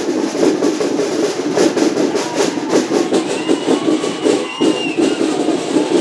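Dense procession crowd noise with fast, steady beating of drums, about six or seven beats a second, and a few short rising-and-falling whistles over the top in the second half.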